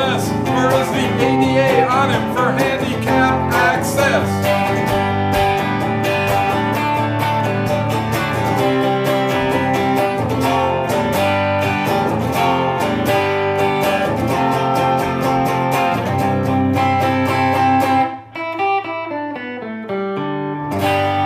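Guitar music from an Ibanez hollow-body electric guitar, with picked lead lines over sustained chords. Near the end the playing thins to a falling run of single notes, then a struck chord rings out.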